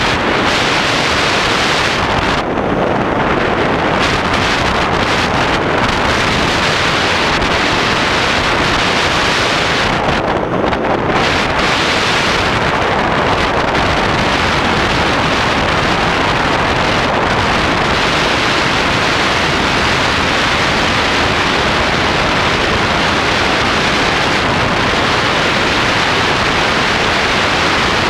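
Steady rush of airflow buffeting the microphone of a camera mounted on a hang glider in flight; the high hiss eases briefly twice.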